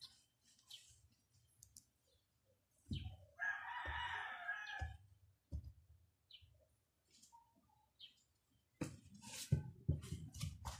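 A rooster crows once, about a second and a half long, a few seconds in. Dull bumps and rustling come around it, and a louder cluster near the end, as plush toys are knocked about on the floor.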